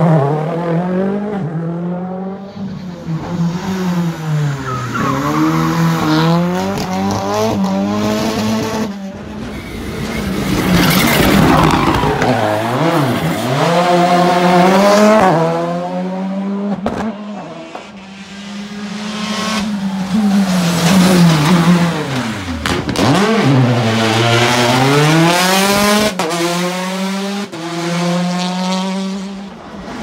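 Rally cars with turbocharged four-cylinder engines taking a tight hairpin one after another, each revving hard, dropping and climbing through the gears as it brakes, turns and accelerates away. There are a few sharp cracks among the engine notes.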